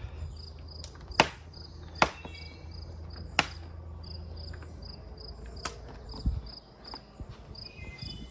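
A handful of sharp, separate taps and knocks as the plastic ducktail spoiler is pressed and patted down by hand onto the hatch lid. Under them an insect chirps steadily about every half second, and a low hum stops about six seconds in.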